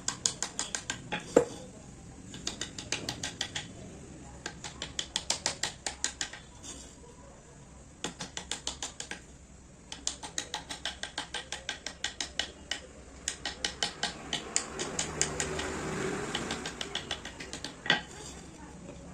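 Wood-carving chisel struck with a mallet in quick runs of light taps, about six a second, with short pauses between runs as the chisel is moved along the design. Two heavier single knocks stand out, one near the start and one near the end.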